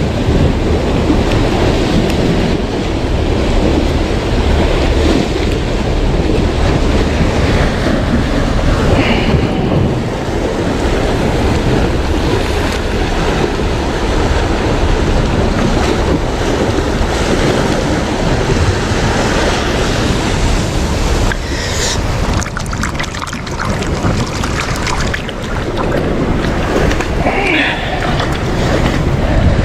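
Sea waves and surf washing steadily, with wind buffeting the microphone.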